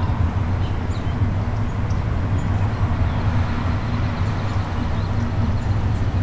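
Steady low rumble of outdoor background noise, unchanging throughout, with no distinct events standing out.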